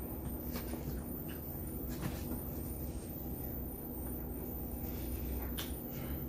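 Faint clicks and crunches of eating, a few in all, over a steady low background hum.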